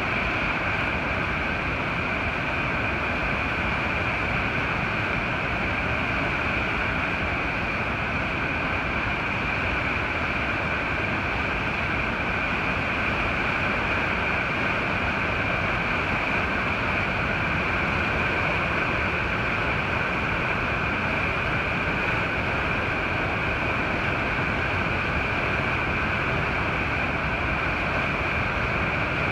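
The swollen Yellowstone River rushing over rocks at the brink of the Upper Falls: a steady, unbroken whitewater rush with no let-up.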